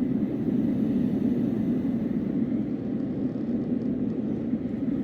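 Airsee white noise machine playing its machinery sound: a steady, bassy rumble of noise without breaks.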